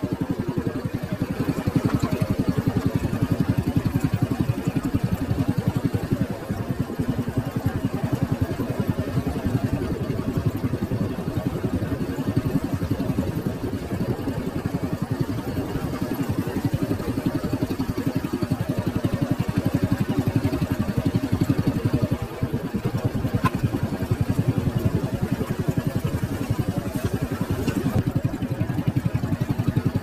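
Small vehicle engine running steadily while driving along a rough dirt road, with a rapid, even pulsing beat.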